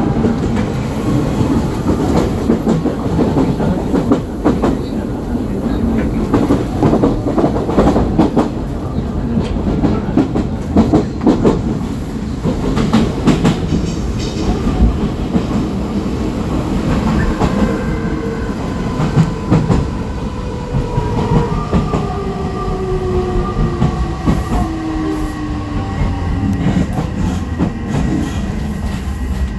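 Odakyu 3000 series electric train heard from inside a motor car. In the first half the wheels clatter over rail joints. Later the Mitsubishi IGBT-VVVF inverter and its six-pole induction motors whine in several tones that slowly fall in pitch as the train brakes for a station stop.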